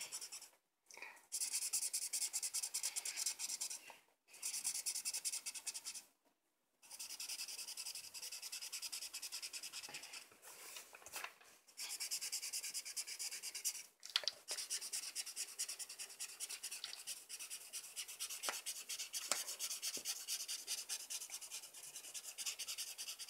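Grey felt-tip marker scratching on paper in quick back-and-forth colouring strokes, stopping for a moment several times when the pen is lifted.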